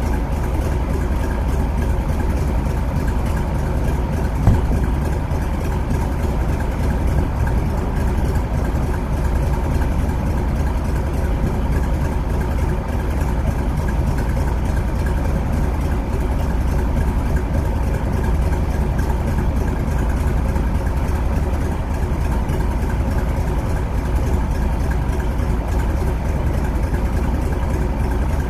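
Old car's engine idling steadily, picked up close by a camera mounted on its hood. There is a brief tap about four and a half seconds in.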